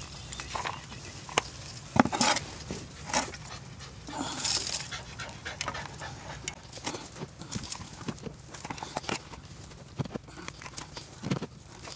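Spade scooping compost and tipping it into a plastic tub: the blade scrapes and the soil spills and rustles in, in short irregular bursts.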